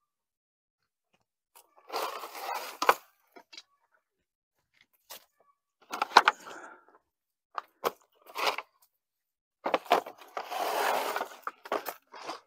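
Wooden boards and yard debris being picked up and dragged off the ground, in several separate bursts of scraping, crunching and clattering with sharp knocks.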